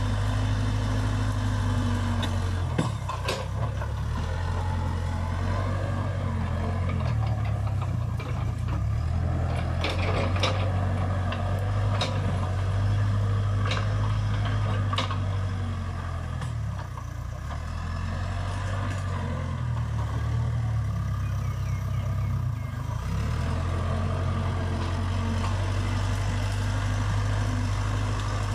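Case Super K backhoe loader's four-cylinder diesel engine running under load as its front bucket pushes through brush, the engine note shifting slightly now and then. A few sharp cracks of brush snapping come through, about three seconds in and again between about eight and fifteen seconds in.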